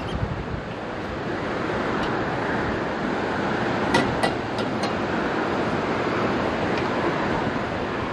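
Wind buffeting the microphone, a steady rushing noise, with a few sharp clicks about four seconds in.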